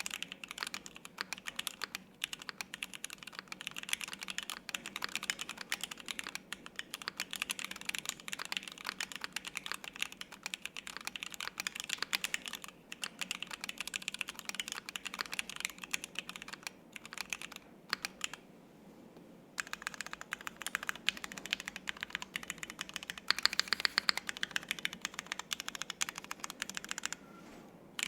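Continuous fast typing on a Rama Thermal 60% mechanical keyboard with lubed Zealios V2 tactile switches on an aluminium plate, GMK double-shot ABS keycaps and no case or plate foam. The keystrokes are dense and irregular, with a pause of about a second and a half roughly two-thirds of the way through and a shorter pause near the end.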